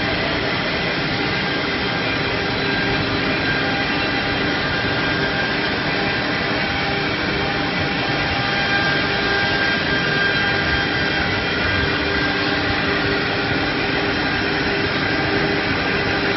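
CNC router spindle running at high speed and cutting grooves into a wooden board. A steady, even noise carries several held tones throughout.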